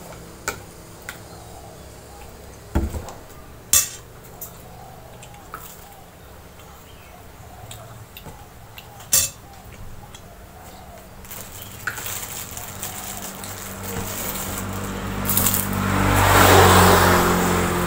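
A spoon clinking a few times against a glass plate while eating. In the second half a passing motor vehicle grows louder and becomes the loudest sound near the end.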